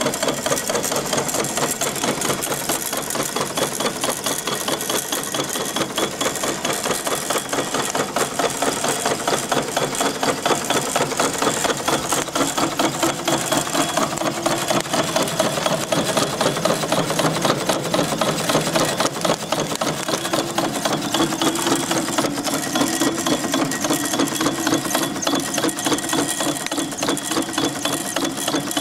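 Small twin steam engines of a quarter-scale model logging steam donkey running steadily, with a rapid, even beat of exhaust and moving parts.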